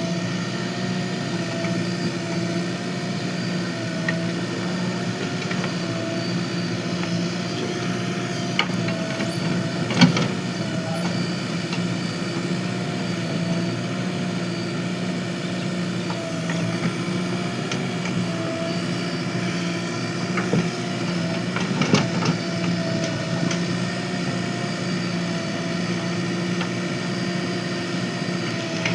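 JCB 3DX backhoe loader's diesel engine running steadily while digging soil, its pitch wavering slightly. Two sharp knocks stand out, one about a third of the way through and one about three quarters through.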